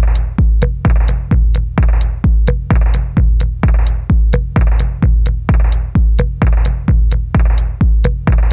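Electronic background music with a steady, heavy kick-drum beat about twice a second and sharp hi-hat ticks.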